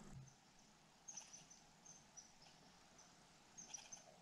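Near silence with faint, scattered high-pitched chirps, bunched in short clusters about a second in and again near the end.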